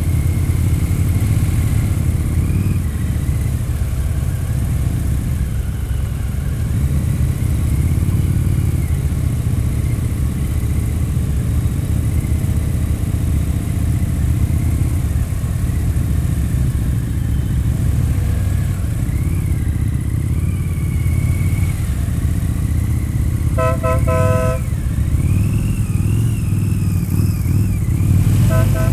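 Harley-Davidson touring motorcycle's V-twin engine running under way, a steady low rumble throughout. A vehicle horn beeps in a quick series of short toots about 24 seconds in, and again briefly near the end.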